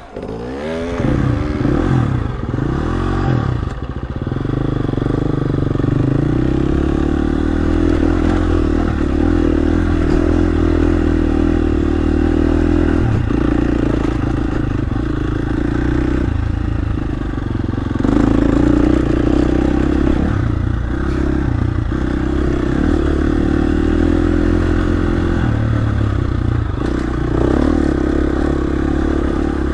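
Dirt bike engine pulling away with a few quick throttle blips, then running under load while the pitch rises and falls with the throttle.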